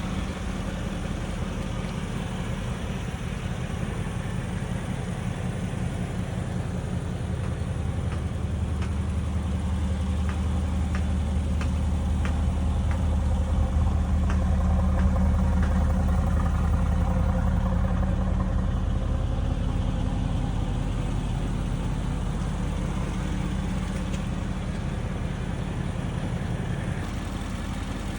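2017 Mercedes-AMG GT's 4.0-litre twin-turbo V8 running with a steady low note. It swells louder over several seconds to a peak about halfway through, then eases back down.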